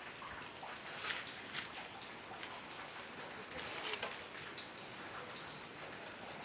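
Metal tongs handling roasting maize cobs on a wire grill over a charcoal fire: a few short scraping, clattering sounds about a second in and again near four seconds.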